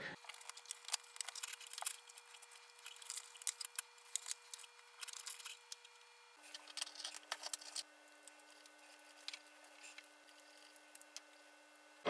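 Faint handling noise: scattered small clicks and light rubbing from gloved hands working a DLP projector's color wheel, peeling its small adhesive vibration bushings off to move them to the replacement wheel.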